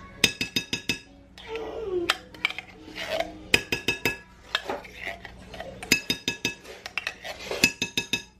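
Metal spoon scraping and clinking against a tin can of tomato paste and a glass mixing bowl while scooping the paste out. The clinks come in several quick, ringing bursts.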